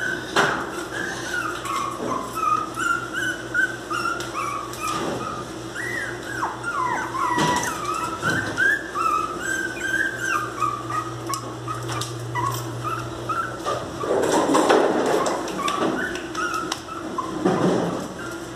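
Miniature pinscher puppy whining and whimpering in high, wavering cries, almost without a break for the first ten seconds or so. Later come scratchy scraping noises, the puppies' claws pawing at a glass door.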